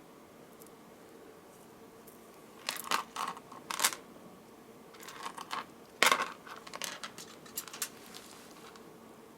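Small beads clicking and clattering against one another as they are picked up and strung onto a necklace strand. It comes in a few short bursts starting about three seconds in, the loudest about six seconds in.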